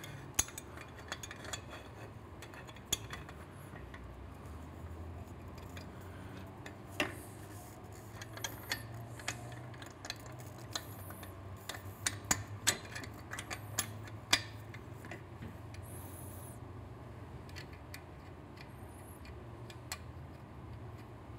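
Metal clinking and clicking from an exhaust header pipe's flange and nuts being worked onto the cylinder-head studs by hand. The clicks are sharp and irregular, busiest through the first fourteen seconds or so and sparse after, over a low steady hum.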